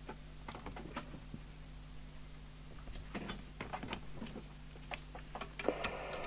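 Scattered small clicks and knocks of the coax plug and leads being handled over a faint steady low hum, then near the end a steady hiss starts from the Rotel RVC230 FM CB radio's own speaker: open-squelch receiver noise as the aerial plug goes onto the set.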